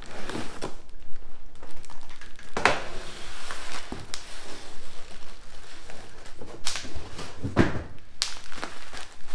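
Bubble wrap crinkling and rustling in irregular crackles, with a few sharper, louder crinkles, as a long wrapped part is pulled out of a cardboard shipping box.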